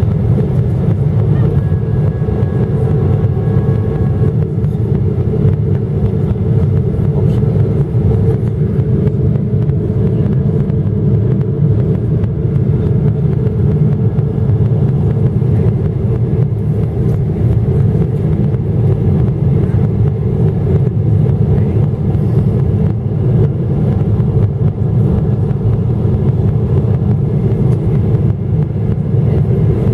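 Steady, even cabin noise of a Boeing 777-300ER in flight on approach: the low rumble of its GE90-115B engines and the rush of air past the fuselage, heard from a seat beside the engine.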